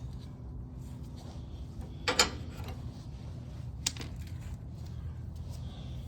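A few sharp metallic clinks of a hand tool against the snowblower, a short cluster about two seconds in and a single click a little later, over a steady low hum.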